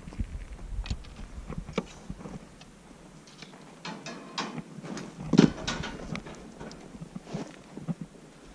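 Scattered light clicks and knocks at an irregular pace, a little busier in the middle, with no engine running.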